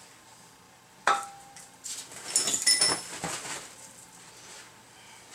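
Small metal parts and tools clinking: one sharp metallic clink about a second in, then a second and a half of quick clinks mixed with rustling, with paper being handled.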